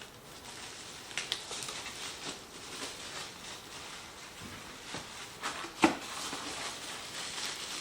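Rustling and scraping of packaging foam and cardboard as flat-pack furniture parts are lifted out and laid down, with scattered light clicks and a sharp knock of a part set down about six seconds in.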